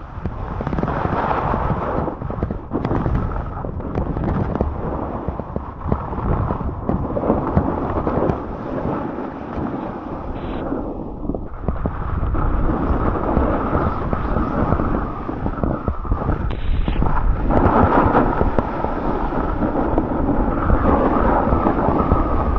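Snowboard sliding and carving down a groomed piste: a continuous rushing scrape of the board on snow, with wind buffeting the microphone.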